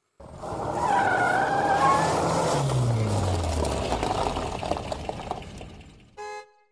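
A car pulling up: tyres squeal about a second in, and the engine note falls as the car slows, then the sound fades away.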